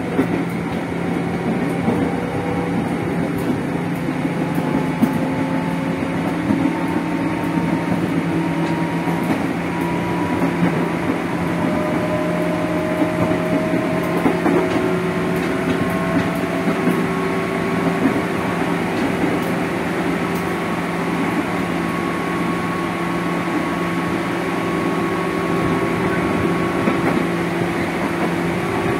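JR 205-series electric train's traction motors running loud under the floor of motor car MoHa 205-270, a whine of several tones slowly rising in pitch as the train picks up speed. Under it is the steady rumble of wheels on the rails.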